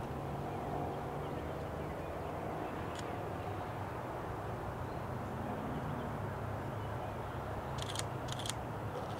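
Diesel locomotive running with a steady low engine drone, as a train works along the line. A couple of short clicks come near the end.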